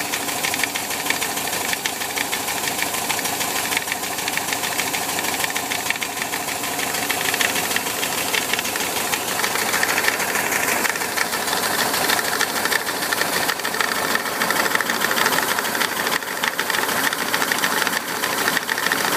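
1973 VW Bus's 1.8-litre air-cooled Type 4 flat-four engine running steadily, with a rapid, even knocking that seems to come from the top (12 o'clock position) of the cooling fan; the owner can't work out its cause.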